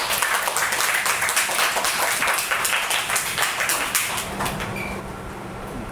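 Applause: a short round of many hands clapping that dies away about four and a half seconds in.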